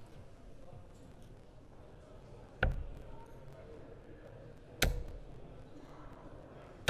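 Steel-tip darts striking a Winmau Blade 6 bristle dartboard: two sharp thuds about two seconds apart, and a third just at the end.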